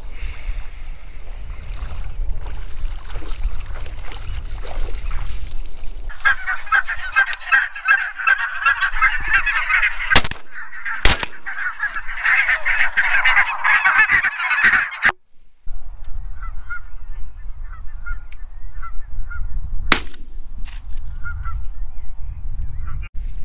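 Water sloshing as a Labrador swims, with wind on the microphone; then loud honking from a flock of geese, broken about ten seconds in by two shotgun blasts about a second apart from a Browning A5 12-gauge. After a break, fainter goose calls go on, with one more sharp crack.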